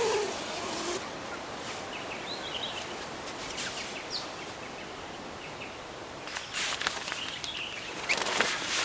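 Rural outdoor ambience: steady background noise with a few faint, short bird chirps, then scattered clicks and rustling toward the end.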